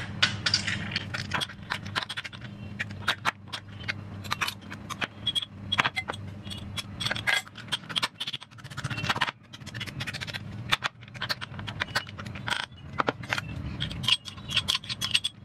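Metal pestle pounding and grinding in a metal mortar, an irregular series of metallic clinks and scrapes as roasted garlic, chillies and tomatoes are mashed. Near the end a spoon scrapes the mash out of the mortar.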